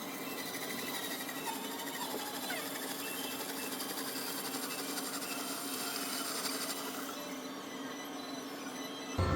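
Steady mechanical hum of background ambience, with music cutting in abruptly at the very end.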